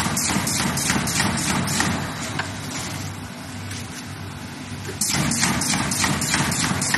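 Automatic corrugated partition assembly machine running: a fast train of mechanical knocks, about four or five a second, over a steady motor hum. The knocking eases off about two seconds in and starts again abruptly about five seconds in.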